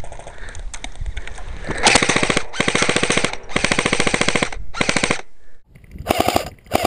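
Airsoft gun firing rapid full-auto bursts, about four in quick succession starting about two seconds in, then another short burst near the end.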